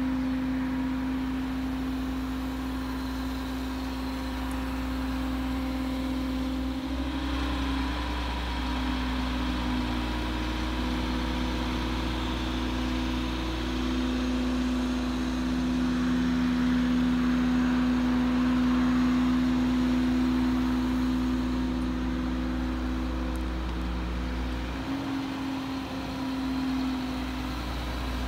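Caterpillar M325D LMH material handler's diesel engine running steadily while its long boom and stick are worked, the engine note shifting a few times as the hydraulics take load.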